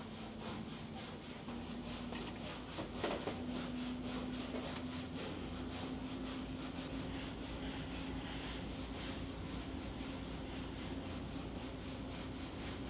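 Steady back-and-forth rubbing, about four strokes a second, typical of hand-scuffing or wiping down a bare-metal part, over a steady low hum. There are a couple of louder knocks about three seconds in.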